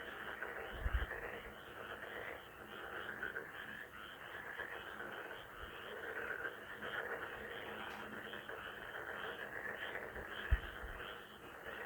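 A chorus of frogs croaking, many rapid calls overlapping without a break. Two brief low thumps, about a second in and near the end.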